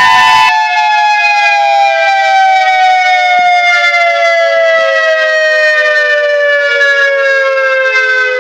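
Outdoor warning siren winding down, several tones together falling slowly and steadily in pitch. A short burst of noise sounds at the very start.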